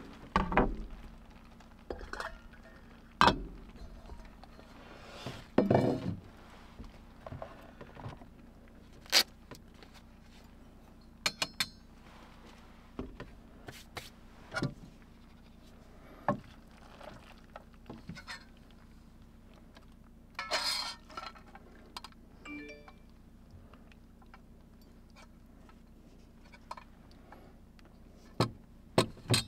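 Scattered clinks and knocks of metal tableware and cookware on a wooden counter: a metal plate and fork set down and food lifted from a frying pan onto the plate, a dozen or so separate taps with quiet gaps between them.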